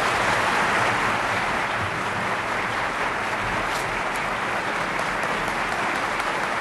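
Steady, dense applause from a full chamber of legislators clapping.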